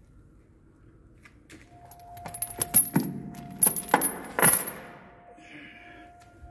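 Steel security chain and padlock being handled and pulled around a scooter's frame: a run of metallic clinks and jangles lasting about three seconds.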